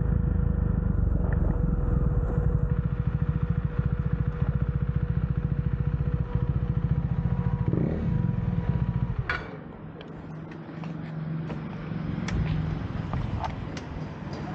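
KTM Duke 390's single-cylinder engine running with a rapid, even beat at low speed, then switched off about nine seconds in with a sharp click. A few light clicks follow.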